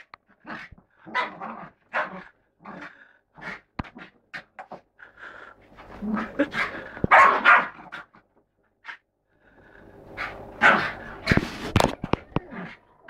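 Bichon Frise barking in play, short barks coming in quick runs, loudest in two bouts midway and near the end.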